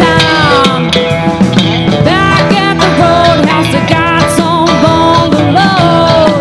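Live country rock band playing loud: electric guitars, bass, drums and keyboard, with melody notes that bend up and down in pitch.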